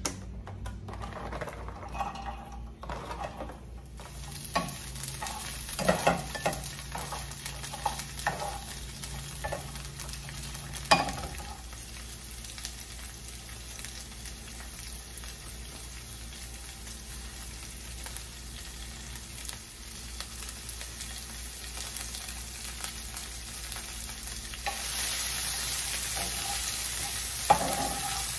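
Sliced onions sizzling in oil in a frying pan, with a few knocks and clatters in the first ten seconds or so. The sizzle gets louder a few seconds before the end as the onions are stirred with a spatula.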